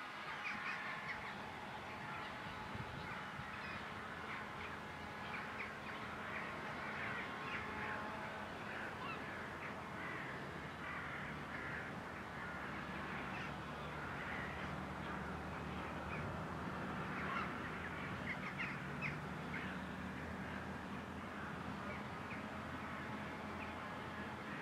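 Many birds calling repeatedly over the low, steady drone of a John Deere tractor's diesel engine as it tows a loaded slurry tanker, the engine growing a little stronger midway.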